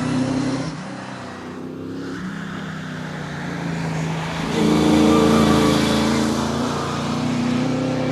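Holden Torana engine running. The note drops away about a second in, then builds again to its loudest about five seconds in, easing slightly near the end.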